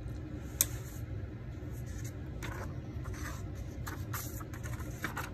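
Paper book page turned and pressed flat by hand on a table: a sharp tap about half a second in, then several short rustles and brushing sounds of hand on paper, over a low steady hum.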